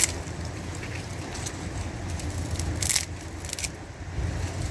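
Dry twigs and brushwood cracking and crunching as they are handled, with a few sharp snaps, the loudest about three seconds in, over a low steady rumble.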